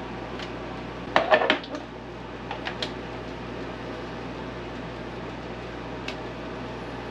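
Eggs and plastic parts of an electric egg cooker clacking together as it is loaded: a quick cluster of clacks about a second in, then a few lighter clicks, over a steady low hum.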